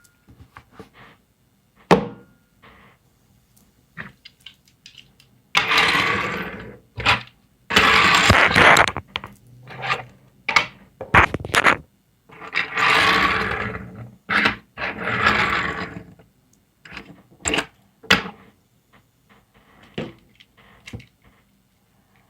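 Handling and impact noises made as a microphone noise test: scattered knocks and clicks, with four louder bursts of rough, hissing noise, each one to two seconds long, about six, eight, thirteen and fifteen seconds in.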